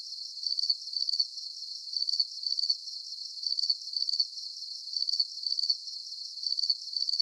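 Cricket chirping, high-pitched short double chirps repeating steadily a bit more than once a second, clean with no other sound under it, like an added sound effect.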